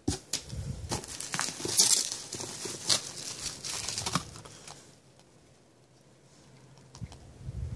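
Plastic bubble wrap crinkling and crackling as wrapped items are handled and pulled out of a cardboard box. The crackling is busy for about the first four seconds, then dies down to faint rustles, with a little more handling near the end.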